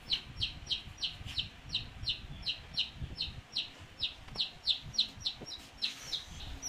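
A baby chick peeping without pause: a rapid string of short, high calls, each falling in pitch, about three to four a second.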